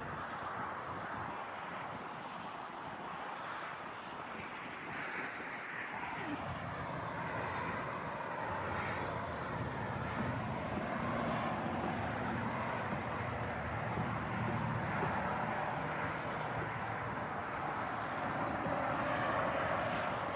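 A distant engine drone, steady and growing slowly louder.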